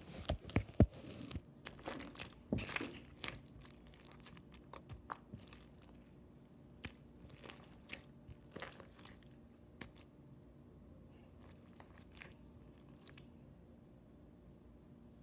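Clear slime packed with blue beads being pressed and squished by hand, giving crunchy crackles and pops. They come thick and fast for the first few seconds, then thin out and stop near the end.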